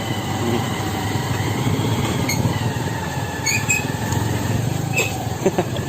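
Motorcycle engine running steadily while riding along an off-road dirt track, a continuous low rumble.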